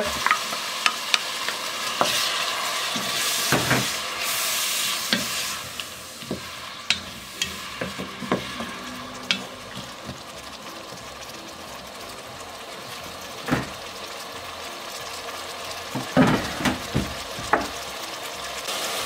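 Chopped onion, celery and green pepper sizzling in a pot while a wooden spatula stirs them, with sharp knocks of the spatula against the pot now and then. The sizzle is strongest for the first six seconds or so, then quieter.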